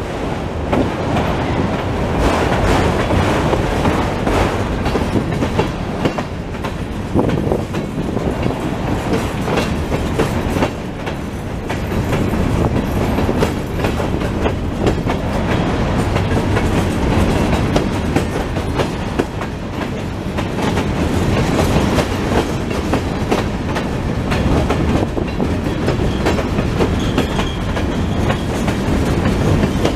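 Freight train's autorack and covered hopper cars rolling past: steel wheels clicking over the rail joints over a steady rumble and rattle of the cars.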